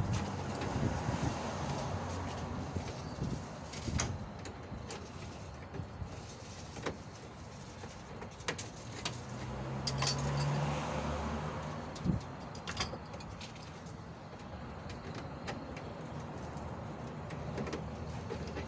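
Scattered metallic clicks and clinks of pliers working on the car's engine fan bolts, which are still tight. A steady background hum swells for a few seconds around the middle.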